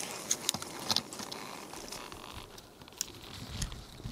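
Handling noise close to the microphone: a few sharp clicks and rustles, most of them in the first second, with a click and a low thump about three and a half seconds in.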